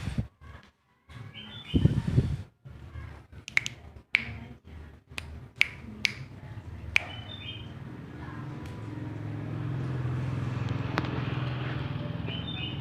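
A bird giving a few short, high chirps, scattered among sharp clicks. A low steady hum rises in the second half.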